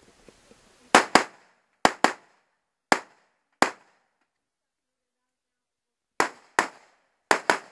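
AR-15 rifle firing about ten sharp shots, mostly in quick pairs, with a pause of about two seconds near the middle.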